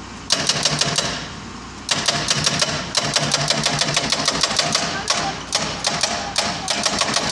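Doosan excavator-mounted hydraulic breaker hammering a concrete pile in rapid, repeated blows. It starts about a third of a second in, stops for a moment, then hammers on with a few brief gaps.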